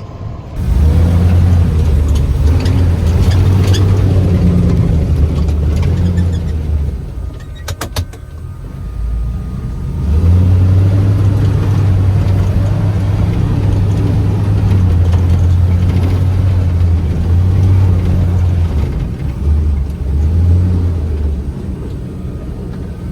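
A vehicle engine running steadily under load with a strong low drone. It eases off for a few seconds in the middle, with a few sharp clicks, then picks up again.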